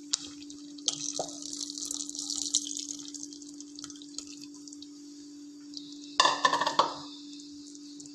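Coconut milk poured from a bowl into a pot of thick haleem: a splashing pour begins about a second in and thins out over the next few seconds. About six seconds in comes a short, loud clatter. A steady low hum runs underneath.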